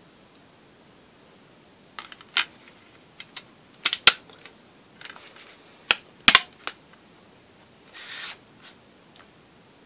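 Sharp plastic clicks and snaps from a clear two-disc DVD case as discs are handled on its centre hubs, a scattered run of clicks with the loudest a little after four seconds and around six seconds in. A brief rustle follows about eight seconds in.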